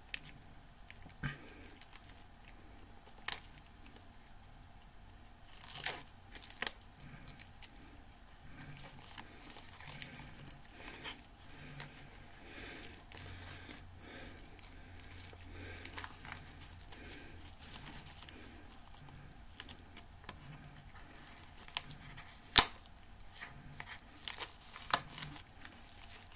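Plastic shrink wrap being picked at and torn off a CD box set: soft crinkling and tearing, with a few sharp clicks scattered through.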